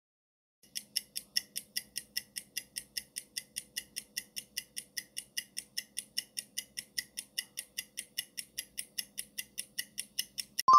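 Countdown-timer ticking sound effect, a fast even tick about five times a second, followed at the very end by a loud chime as the countdown runs out.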